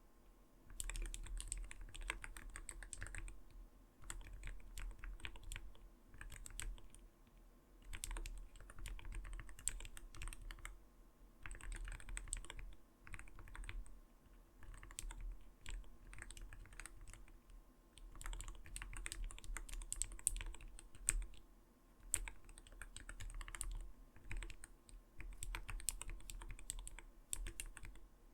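Typing on an Arbiter Studio Polar 65 Phantom White mechanical keyboard with clear keycaps, a soft, rounded clacking the uploader calls "kotokoto". It comes in quick runs of keystrokes a few seconds long, broken by brief pauses.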